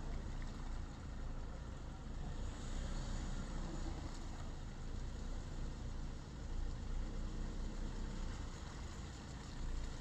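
Volvo XC70's engine running steadily at low speed as the car crawls through a muddy, waterlogged track.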